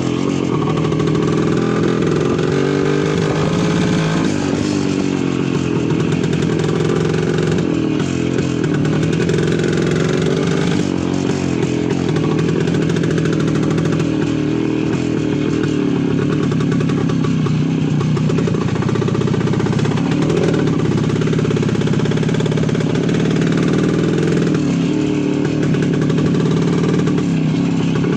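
Voskhod 3M motorcycle's single-cylinder two-stroke engine running continuously, its pitch rising and falling every few seconds as the throttle changes.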